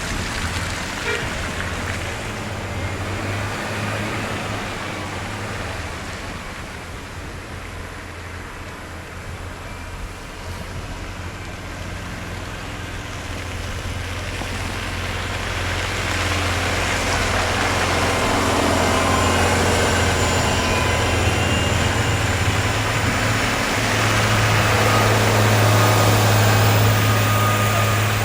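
Road traffic: engines running with a steady low hum, while the noise of a vehicle moving along the road builds up over the second half and is loudest near the end.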